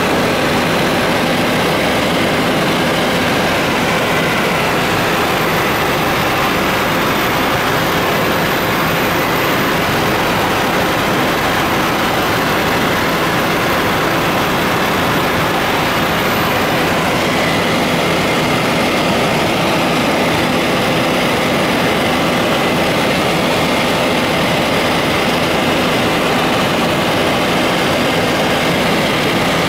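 Helicopter in flight heard from inside the cabin: a loud, steady drone of engine and rotor with a constant hum of several held tones, unchanging throughout.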